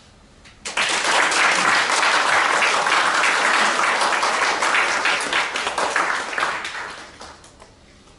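Audience applauding. The clapping starts suddenly about a second in, holds for several seconds and dies away near the end.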